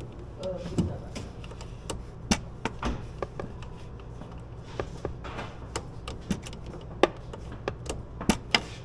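Irregular light clicks and knocks of tools and parts being handled, over a steady low hum.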